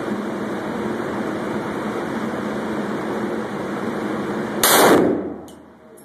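A single shot from a .50 Action Express Desert Eagle pistol about four and a half seconds in: one sharp crack with a brief ringing tail. Before it, a steady hiss.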